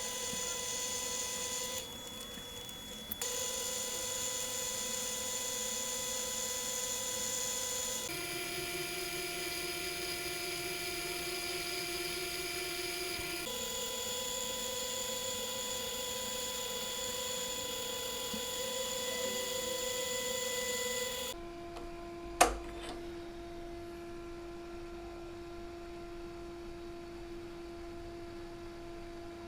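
Car radiator fan's brushed electric motor running with a steady whine, its pitch changing abruptly several times. A sharp click about 22 seconds in.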